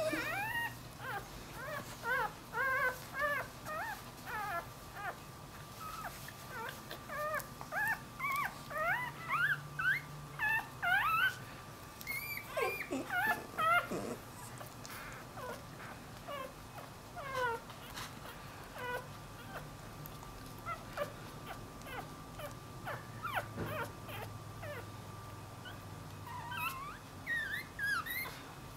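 Newborn dachshund puppy squeaking and whimpering in many short, high, wavering cries, thick and fast through the first half, scattered through the middle, and bunching again near the end: the crying of a newborn pup away from its mother and searching for her.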